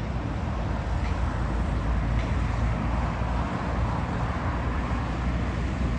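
Boeing 747's four jet engines at taxi power, a steady rumble and hiss that holds level throughout.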